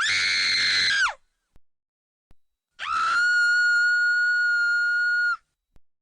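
Two high-pitched screams as horror sound effects: a short one of about a second whose pitch drops away at the end, then after a pause a longer one held at a steady pitch for about two and a half seconds.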